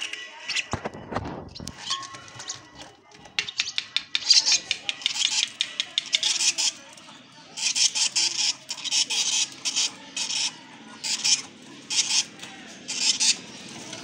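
Lovebird chicks giving begging calls: rapid raspy chirps in short bursts of about half a second, repeated many times with brief gaps. A soft low thump comes about a second in.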